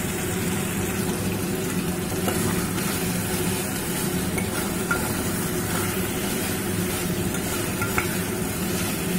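Chicken pieces and fried potatoes sizzling in oily masala in a steel pot while a steel spatula stirs and scrapes through them, with a few light clinks of spatula on pot.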